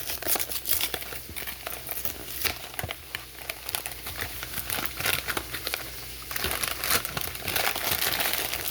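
Bacon frying in a pan: irregular crackling and spattering fat, turning into a denser, louder sizzle from about six seconds in.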